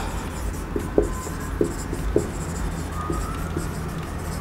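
Marker pen writing on a whiteboard: a run of short scratchy strokes and light ticks, with a faint squeak about three seconds in.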